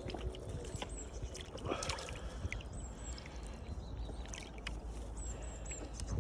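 Lakeside water splashing and sloshing, louder about two seconds in, over a steady low rumble, with a small bird giving short high chirps several times.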